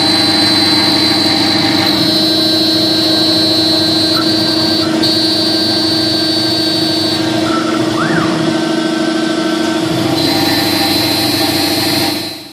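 CNC router spindle running steadily while a 20-degree engraving bit cuts into a composite name plate, a loud hum with cutting noise. Higher whining tones come and go and shift in pitch as the head moves along the lettering.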